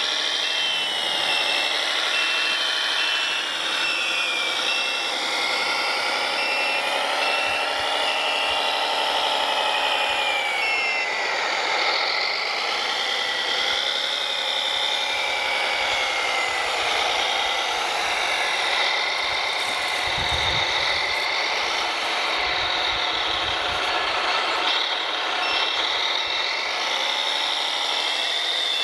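Scale RC construction machinery working: motor whines rise and fall as the machines move. A reversing beeper pulses for roughly the first third and again near the end.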